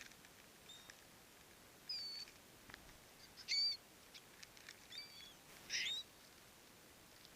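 Gulls calling: a handful of short, high calls, the loudest about halfway through and another near the end.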